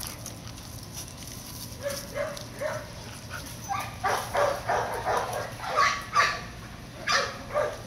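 A dog barking in play: a run of short barks that starts about two seconds in, comes thick and fast in the middle, and returns with a few more near the end.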